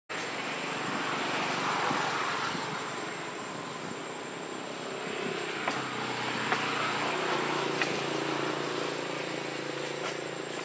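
Steady outdoor background hiss with a thin high whine running throughout, a faint low hum, and a few light clicks midway.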